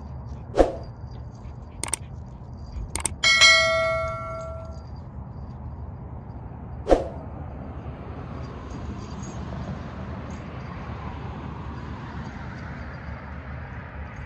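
A single metallic clang about three seconds in that rings on for about a second and a half, with a few short sharp knocks before and after it. A steady low rumble runs underneath.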